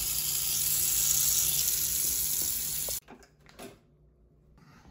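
Water pouring from a tap into a plastic bucket: a steady rushing splash that stops abruptly about three seconds in. A few faint small knocks follow.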